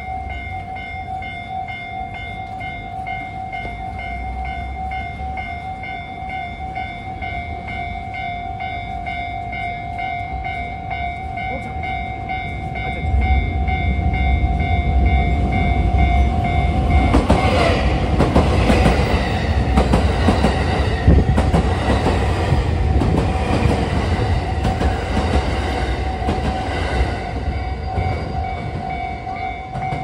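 Japanese level-crossing warning bell ringing in an even, repeating electronic ding. A limited express train comes in under it with a rising rumble from about 13 seconds in, then passes over the crossing from about 17 seconds in, its wheels clacking over the rails.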